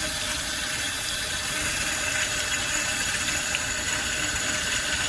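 Tap water running steadily from a kitchen faucet into a stainless steel sink, pouring over and through a small nitro RC exhaust pipe held in the stream as dirt and oil are rinsed out of the pipe: an even splashing hiss.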